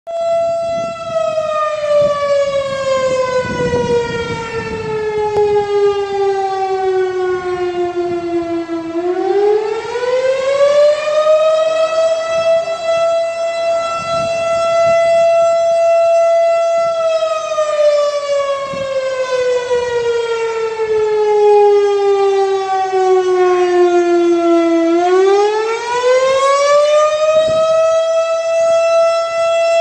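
Fire company's outdoor siren sounding a slow wail. A steady high tone glides down over about eight seconds, swoops back up within a couple of seconds and holds, then makes the same long fall and quick rise again.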